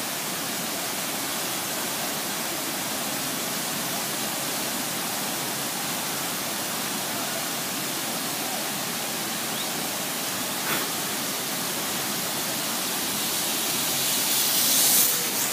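Large waterfall rushing steadily, an even wash of noise. A louder high hiss swells briefly near the end.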